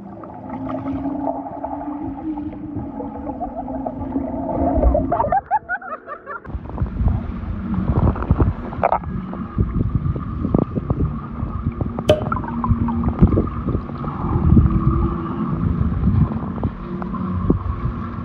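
Muffled underwater sound of sea water churned by swimmers: a rushing, bubbling rumble with many small crackles and a steady low hum beneath. It breaks off briefly about six seconds in and comes back louder.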